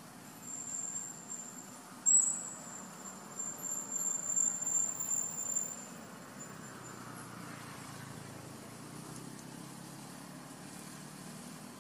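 Insect buzzing at one high, steady pitch, swelling in uneven pulses from about two seconds in and dying away at around six seconds, over a low steady background hum.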